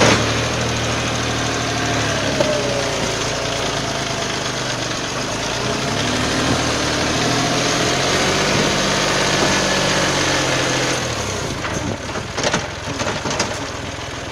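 Motor vehicle engine running steadily with a broad rushing noise. About eleven seconds in the engine sound drops away, and a few sharp knocks and clicks follow.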